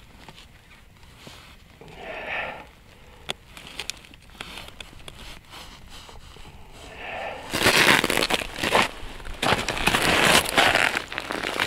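Snow crunching and winter clothing rustling as a person shifts from sitting down onto one knee on packed snow. The sound comes in loud, rough bursts from about seven and a half seconds in, after only faint scattered ticks.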